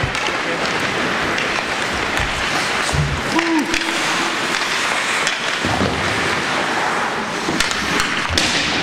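Ice hockey play in a rink: skate blades scraping the ice and sticks knocking on the puck and ice, as a steady noisy wash with scattered sharp clacks.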